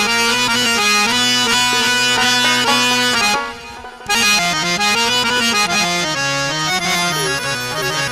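Instrumental intro of a Bengali folk song led by a free-reed instrument of the accordion or harmonium kind, playing a melody over held bass notes, with a short dip about three and a half seconds in.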